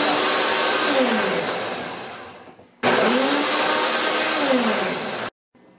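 Ninja countertop blender running a timed program on a jar of leafy greens, fruit and coconut water: two runs of motor noise, each speeding up and then winding down, with a short pause between them a little under three seconds in. The sound cuts off suddenly near the end.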